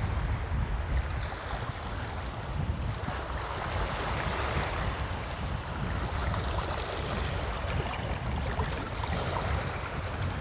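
Wind buffeting the microphone with a steady low rumble, over the wash of small waves in shallow seawater.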